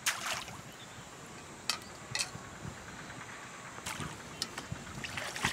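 Water splashing as a plateful of canal water is flung out onto the surface: one short splash at the start, then a few brief, fainter splashes as the metal plate goes back into the water.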